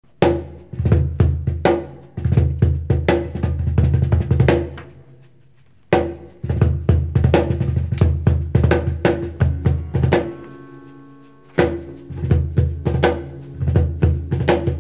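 Cajon played in quick rhythmic phrases, deep bass thuds and sharp slaps on the front plate. The playing drops away briefly about five seconds in. It drops away again around ten seconds in, where a few acoustic guitar notes ring out.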